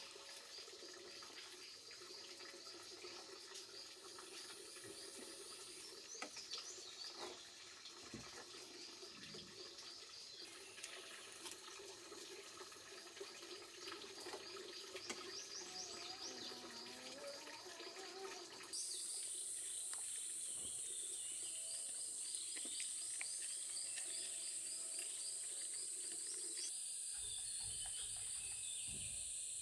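Faint ambience with birds chirping and twittering. About two-thirds of the way through, a steady high-pitched insect drone starts suddenly and carries on.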